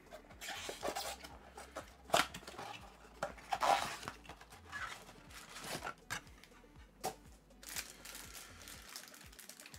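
A cardboard blaster box of trading cards being torn open and its plastic-wrapped card packs pulled out and handled, in irregular scraping, rustling bursts.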